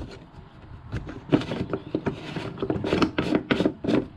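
Grey PVC union nut being screwed back onto a 1.5-inch spring-type check valve by hand: plastic threads and body rubbing, with an irregular string of short scraping clicks, about three a second, from about a second in.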